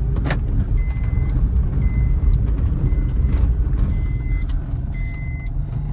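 Low road and engine rumble inside a moving Kia car, with a sharp click just after the start. From about a second in, an electronic beep of about half a second sounds roughly once a second.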